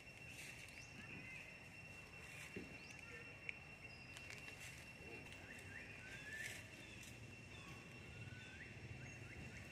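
Faint outdoor ambience: a steady high-pitched drone with scattered short rising chirps and a single sharp click about a third of the way through.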